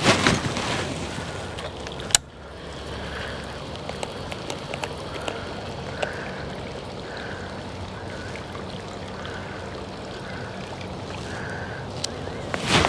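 Water gurgling and sloshing, with a sharp click about two seconds in.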